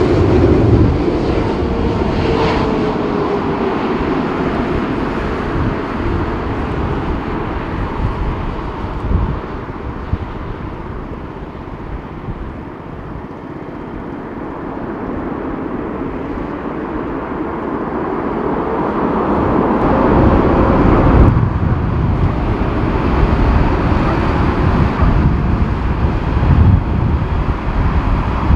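Boeing 747 freighter jet engines: a 747-8F's engines whining and gliding down in pitch as it passes close, then a loud jet roar building on the runway. The sound breaks off suddenly about 21 seconds in and another 747's engines carry on loudly.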